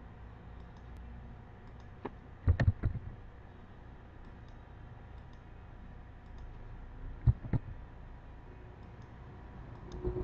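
Computer mouse buttons clicking: one click about two seconds in, a quick cluster of several just after, and two more clicks about seven seconds in, over a low steady hum.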